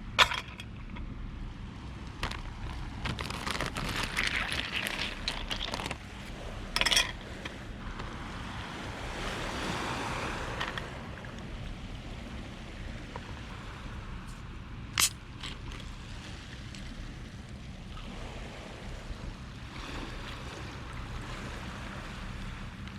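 Waves washing on a beach: a steady low surf rumble with a wash of water that swells and falls back about nine to eleven seconds in. A few sharp clicks stand out over it, the loudest about seven and fifteen seconds in.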